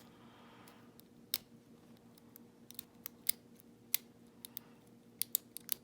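Lock pick and tension wrench working the pins of a five-pin ISEO euro cylinder: a dozen or so sharp, irregular metallic clicks, with a soft scrape in the first second.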